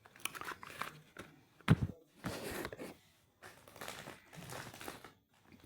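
Handling noise of small objects on a work surface: irregular rustling and crinkling, with one sharp knock about a second and a half in.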